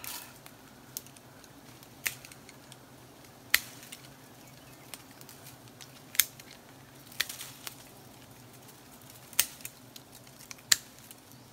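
Twigs and branches snapping and cracking as someone pushes and climbs through thorny tree branches: about nine sharp snaps at irregular intervals, the loudest three about halfway through and near the end, over a faint low steady hum.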